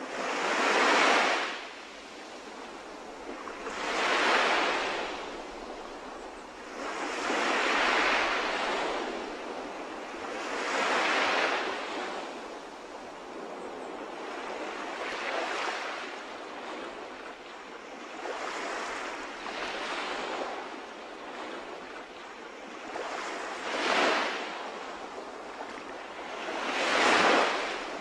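Sea waves breaking on a shore: the surf swells and falls away in a surge about every three to four seconds.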